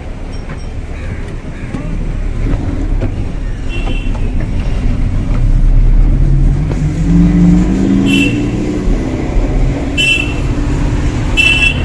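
City road traffic: a heavy, steady engine rumble, with a vehicle's engine climbing in pitch as it accelerates about two-thirds of the way through. Short, high horn beeps sound four times.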